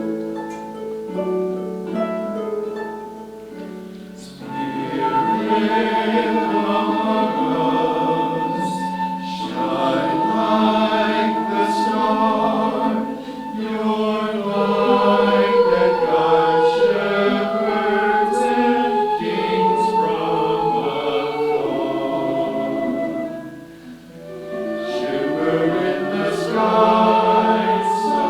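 A church choir singing with instrumental accompaniment, the voices entering about four seconds in after a short instrumental introduction of quick plucked-sounding notes.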